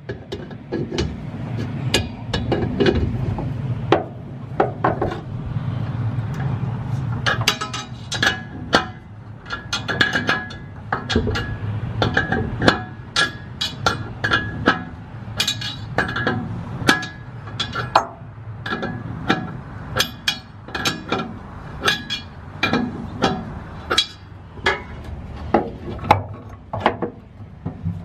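Hand tools working an air-line fitting on an air-ride tank: a ratchet and wrench clicking and clinking against metal in an irregular series, with a low rumble in the first several seconds.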